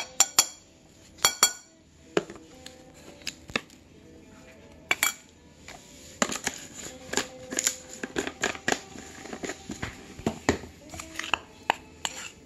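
A metal spoon clinks and taps against a bowl, a few of the strikes ringing in the first couple of seconds. From about six seconds in, a dense run of scraping clicks follows as the spoon stirs the dry flour mixture.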